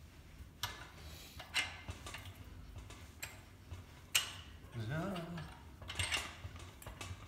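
Irregular metal clicks and clinks from the threaded adjuster of a galvanised steel boat cradle being screwed in by hand. A short low hum of a voice sounds about five seconds in.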